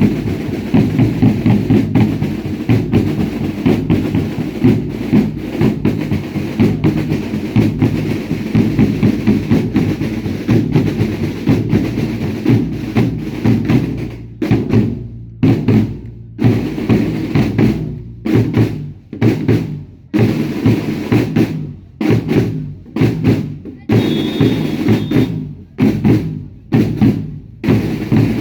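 Drums of a Baile Indio dance troupe: fast, dense drumming for about the first half, then slower, evenly spaced beats about one a second.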